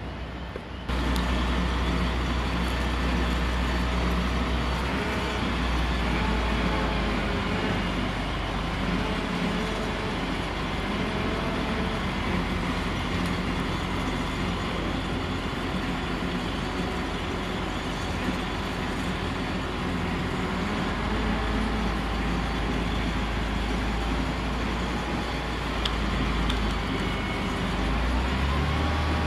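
Heavy diesel engine of a crane running steadily under work, louder from about a second in, with its pitch rising near the end.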